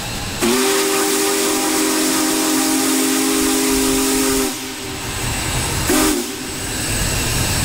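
Union Pacific Big Boy No. 4014 steam locomotive sounding its chime steam whistle: one long blast of about four seconds starting half a second in, then a short toot about six seconds in. A steady steam hiss and a low rumble from the working locomotive run underneath.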